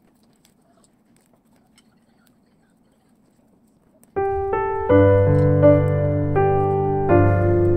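Faint small ticks of paper being folded by hand, then background piano music starts abruptly about four seconds in.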